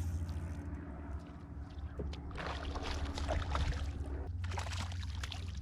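Boat motor running with a steady low hum, with a stretch of water splashing starting about two seconds in and more splashing near the end.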